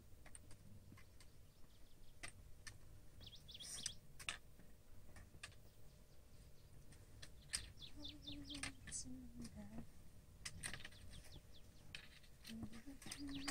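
Faint chirping of small birds in quick runs of short falling notes, with scattered sharp clicks and faint voices.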